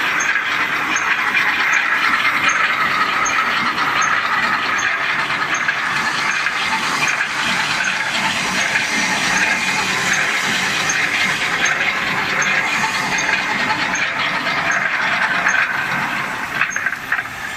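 Automatic welded wire mesh machine running: a steady mechanical hiss and clatter, with a light high click repeating about every three-quarters of a second that stops near the end.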